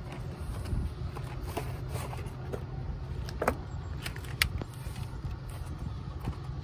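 Plastic packaging being handled: a clear plastic antenna case pulled from its cardboard box and turned over, with light rattling and two sharp clicks about three and a half and four and a half seconds in, over a steady low rumble.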